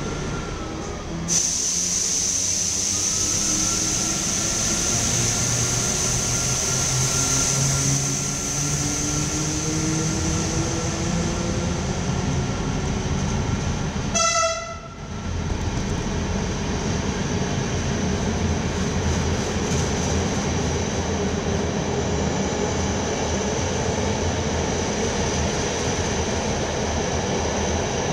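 Belgian HLE 11 electric locomotive 1182 pulling its train out of an underground platform, its traction motors whining and rising in pitch as it accelerates, with a steady high hiss and the rolling noise of the coaches passing close by. About halfway through, a short single-note horn blast sounds.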